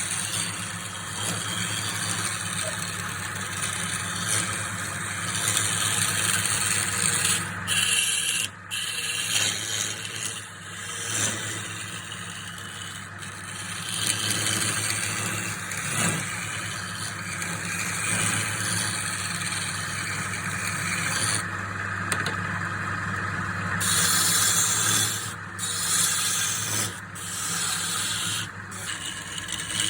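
Wood lathe running with a steady motor hum while a turning tool scrapes and cuts the spinning wood; the scraping hiss breaks off briefly a few times, the longest gap about two seconds long, as the tool comes off the work.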